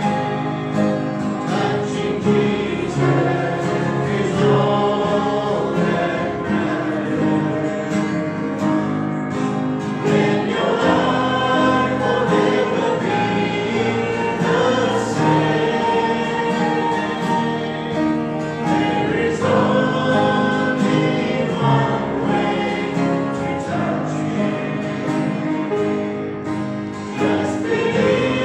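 Congregation singing a hymn together with instrumental accompaniment.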